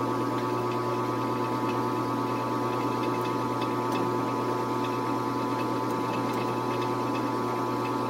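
Metal lathe running steadily at constant speed while a drill bit in the tailstock chuck bores into the spinning workpiece, a low hum with a steady whine and faint scattered ticks.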